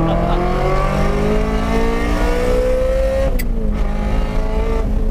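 Ferrari F355's 3.5-litre V8 through a straight-pipe exhaust, pulling hard with its pitch rising steadily. About three seconds in there is a sharp crack as it upshifts and the pitch drops, then it carries on at a lower pitch.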